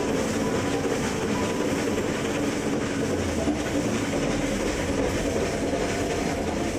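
Steam-hauled Nilgiri Mountain Railway train running, the wheels going steadily over the track.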